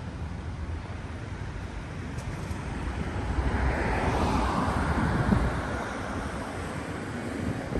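Wind buffeting the microphone with a low rumble, while a vehicle passes, swelling and fading away in the middle.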